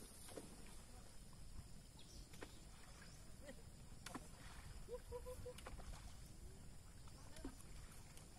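Faint outdoor ambience: a steady low rumble with a few faint clicks and a short, distant pitched call about five seconds in.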